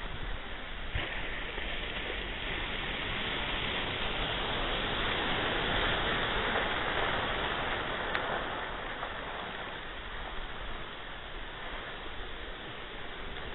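Ocean surf washing in, a steady rush that swells louder about halfway through and then eases back.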